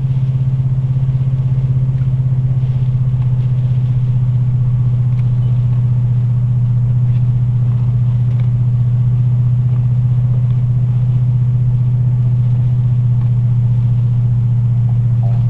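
A car driving at a steady pace: its engine and road noise make a constant low drone that does not change.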